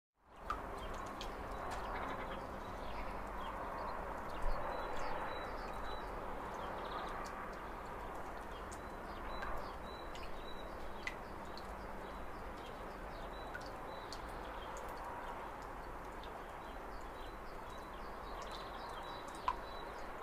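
Steady outdoor background noise with faint, short, high bird chirps and a few soft clicks.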